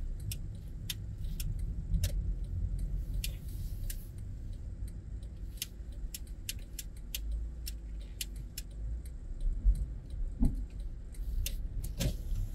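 A car creeping slowly, heard from inside the cabin: a steady low rumble with frequent light, irregular clicks and rattles. There is a brief squeak about ten seconds in.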